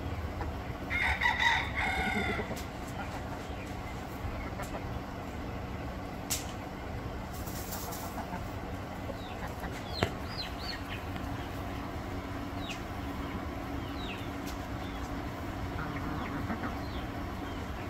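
A rooster crows once about a second in, the loudest sound, followed by short soft chirps and clucks from the chickens. A brief scratchy rustle of dry dirt comes as the birds dustbathe, over a steady low background rumble.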